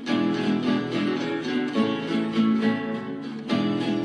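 Instrumental break in a sertanejo raiz song: acoustic guitars picking a melody over a strummed accompaniment, with no singing.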